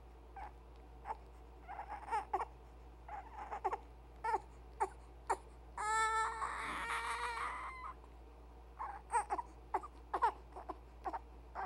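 An infant fussing with the hiccups: short high squeaks and whimpers coming every second or so, broken by one longer cry about six seconds in.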